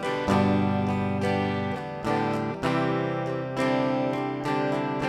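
Acoustic guitar strumming chords in a steady rhythm, several strokes a second, with no voice.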